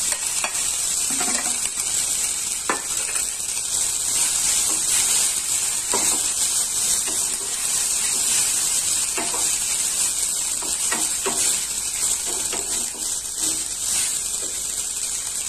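Boiled instant noodles frying in oil in a kadai, a steady sizzle, while a wooden spatula stirs them and knocks against the pan now and then.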